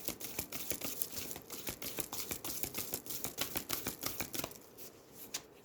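A deck of gilded oracle cards being hand-shuffled: a quick, even patter of cards slapping and flicking against each other, thinning out and stopping near the end.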